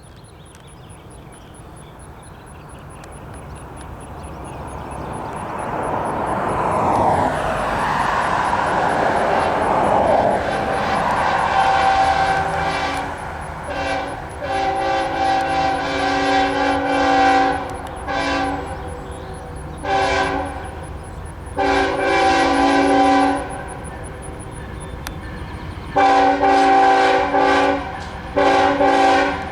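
A diesel freight train approaching, its rumble growing steadily louder, then the lead locomotive's multi-tone air horn sounding a string of long and short blasts in a horn show: a long blast with brief breaks from about ten seconds in, several shorter ones, and two of the loudest near the end.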